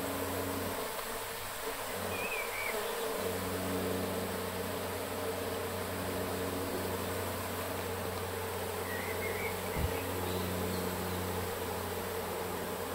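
Honeybees buzzing as a colony is scooped out of its comb, a steady low hum of many bees at once. A single brief knock about ten seconds in.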